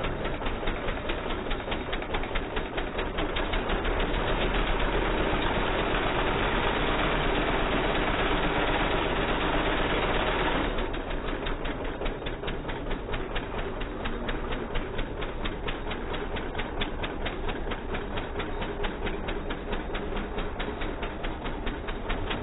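Lawnmower engine rigged as a boat outboard, running under way with a fast, even firing rhythm. It grows louder and busier over the first few seconds, then about eleven seconds in it drops suddenly to a quieter, slower-sounding pace for the rest.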